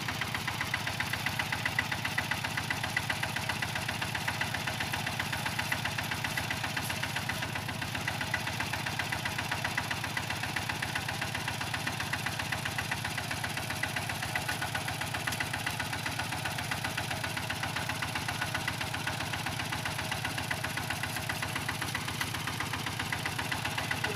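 Single-cylinder diesel engine of a two-wheel walking tractor idling with a steady, even chugging.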